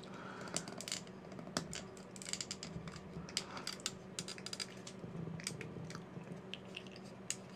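Small model-kit parts clicking and tapping against each other as they are handled and slid into place, in quick irregular clusters over a faint steady hum.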